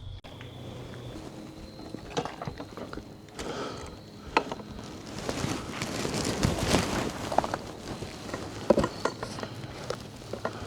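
Rustling and scattered knocks and clicks of a person moving about in dry forest leaves, loudest for a few seconds in the middle.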